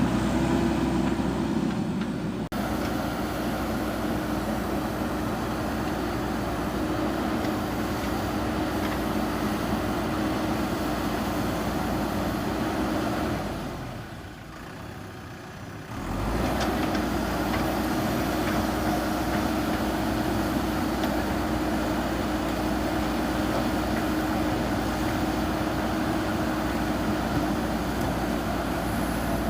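JCB backhoe loader's diesel engine running steadily while the machine works. It drops quieter for about two seconds about halfway, then comes back.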